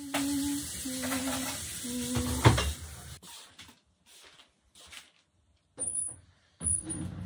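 Food sizzling in a hot pan for about three seconds, with a knock of cookware about two and a half seconds in, then quieter scattered kitchen handling sounds.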